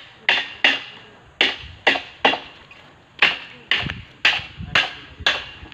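Hammer blows struck about two a second at an uneven pace, each a sharp knock with a short ring.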